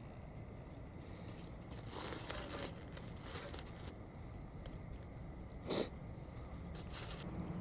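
Scattered rustling and crinkling, with a few light clicks and one sharper snap a little before six seconds in.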